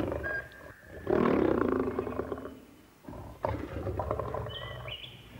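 Lions mating: a long, loud growl begins about a second in and fades out, then a second, quieter growl follows at about three and a half seconds.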